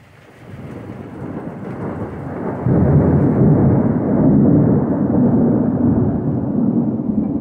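Deep rumble of thunder. It builds from about half a second in, jumps louder a little before three seconds in and stays loud, then eases near the end.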